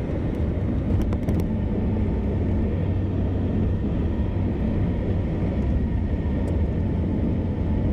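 A car driving at road speed: a steady low rumble of tyres on the road and the running engine, with a few faint clicks about a second in.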